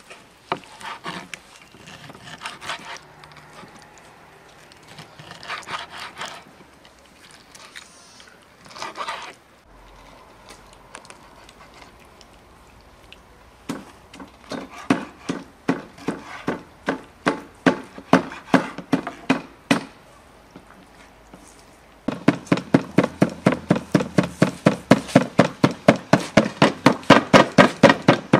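A knife slicing lamb liver on a wooden cutting board, then a meat cleaver chopping meat on a wooden stump block in evenly spaced strikes, about three a second, which grow louder and faster, about five a second, for the last several seconds.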